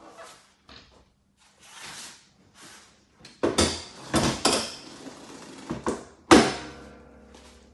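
A plastic tray scraping as it slides out from under a cosmetology couch, then the couch's metal backrest mechanism clunking several times as the backrest is released and lowered flat. The last clunk, about three-quarters of the way in, is the loudest and rings on.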